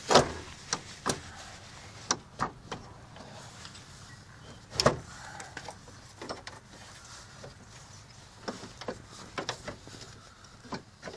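Scattered knocks and clicks of metal parts and tools being handled while a replacement alternator is worked into place in a car's engine bay, the loudest knock about five seconds in and a run of lighter clicks near the end.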